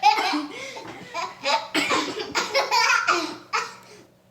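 Hearty laughter in rapid breathy bursts, dying away near the end.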